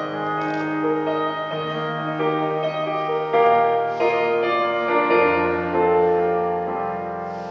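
Keyboard playing a slow instrumental introduction of sustained chords that change about every second, growing a little softer near the end.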